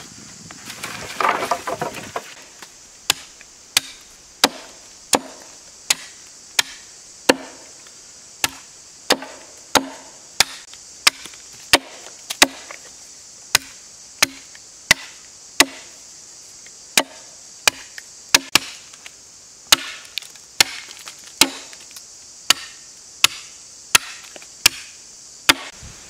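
Repeated chopping blows into a thin green sapling, about one and a half strikes a second in a steady rhythm, each a sharp woody knock, after a brief rustle of handling at the start.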